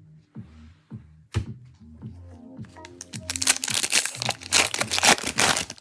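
A foil trading-card pack wrapper being torn open and crinkled: one sharp crack about a second and a half in, then a dense stretch of crinkling and tearing over the last few seconds. Background music plays underneath.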